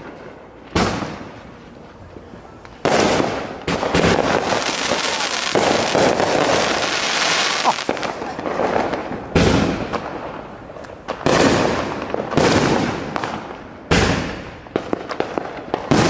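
Aerial fireworks bursting overhead: a run of sharp bangs a second or two apart, each trailing off in echo, with a stretch of dense crackling in the middle.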